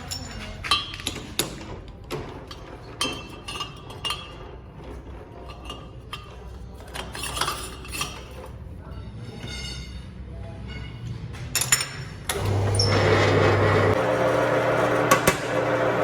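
Metal parts clinking and tapping as they are handled, then about twelve seconds in a machine starts and runs steadily with a low hum and hiss.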